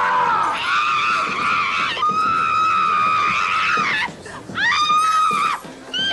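A woman screaming: four long, high screams, each held for one to two seconds with short breaks between them, the pitch steady through each.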